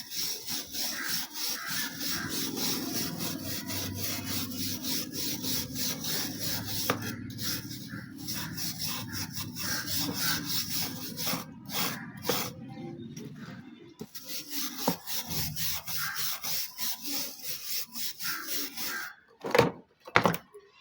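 Rapid, steady back-and-forth hand rubbing strokes on the rusty metal knife blade, the sound of abrasive rust removal. The strokes break off briefly about two-thirds through, and a few louder knocks come near the end.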